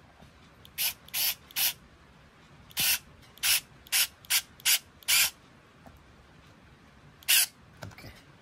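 Skil 4V cordless screwdriver running in about ten short bursts, its motor and gearbox whirring briefly each time as it turns screws in a plastic battery-pack casing, with a longer gap before the last burst near the end.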